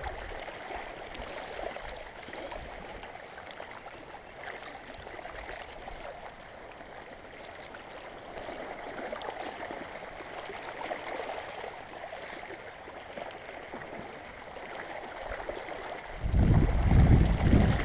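River water lapping and sloshing against a gravel bank in a steady wash. A loud low rumble comes in near the end.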